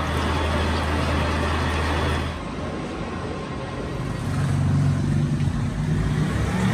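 Machine-shop machinery running: a steady low hum with a broad noisy layer that drops away a little over two seconds in, followed by a lower, wavering hum.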